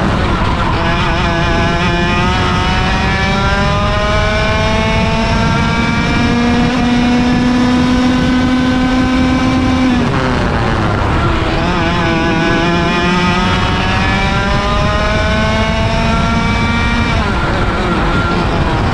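Vortex ROK VLR 100cc two-stroke kart engine at full throttle, heard onboard: its pitch climbs steadily as the kart gathers speed, drops sharply about ten seconds in as the driver lifts for a corner, then climbs again and drops once more near the end.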